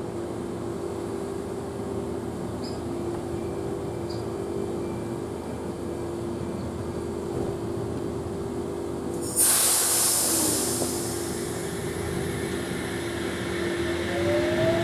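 A double-deck electric train standing at the platform, humming steadily. About nine seconds in, a sudden loud blast of compressed air from its brake system hisses and fades over a couple of seconds. Near the end, a rising electric whine as a train starts to pull away.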